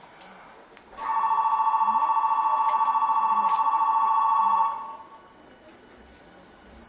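Station departure bell heard from inside the car of a Tokyu 9000 series train standing at a platform: a steady two-tone electric ring with a rapid flutter, starting about a second in and lasting nearly four seconds before fading out. It signals that the doors are about to close.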